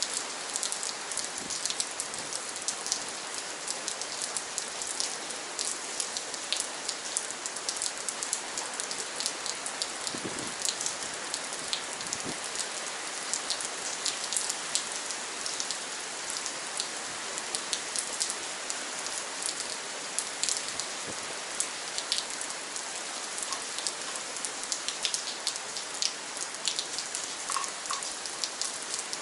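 Steady rain falling, with a dense hiss and many distinct drop impacts.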